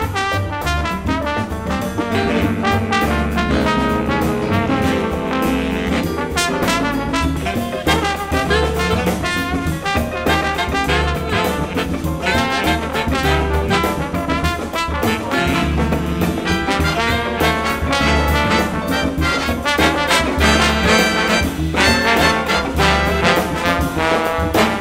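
Live jazz big band music: a trombone plays a solo line while the band accompanies.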